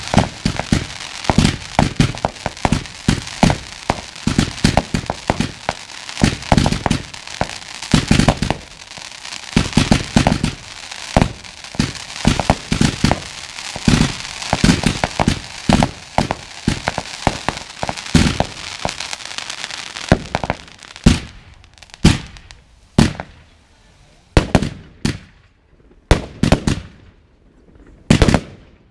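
Fireworks going off close by: a dense barrage of launch thumps, bangs and crackling. From about two-thirds of the way through it thins to single loud bangs roughly once a second, with quiet between.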